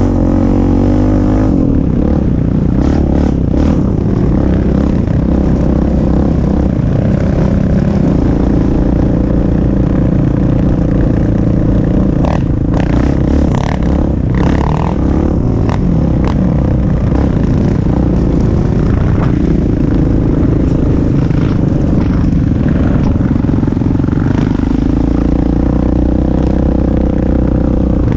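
Sport quad ATV engine running under way, its pitch shifting up and down as the throttle changes, with scattered sharp clicks and clatter from the ride.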